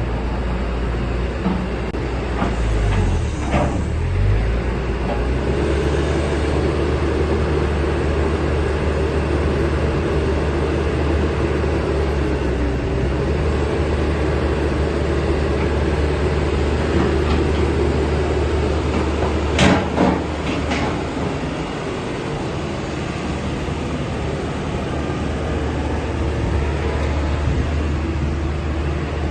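Atlas 1304 wheeled excavator's diesel engine running steadily, with a few sharp knocks about three to four seconds in and two more about two-thirds of the way through.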